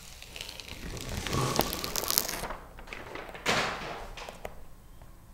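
Paper backing being peeled off the pressure-sensitive adhesive of a traction mat and crinkling as it comes away, loudest around two seconds in, with a second shorter rustle about three and a half seconds in.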